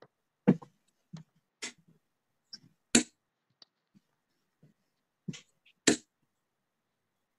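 Darts knocking into a bristle dartboard, with fainter clicks between. The sharp knocks are loudest about half a second, three seconds and six seconds in.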